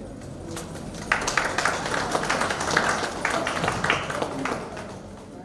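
Audience applauding, a dense patter of hand claps that starts about a second in and fades away near the end.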